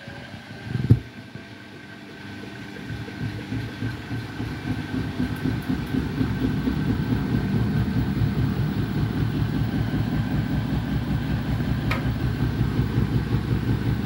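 Beko WTK104121W front-loading washing machine's drum spinning up for an intermediate spin with an overloaded, unbalanced load. A single thump comes about a second in. Over the next few seconds the sound builds into a steady, loud rumble with a fast even pulse and a faint steady whine.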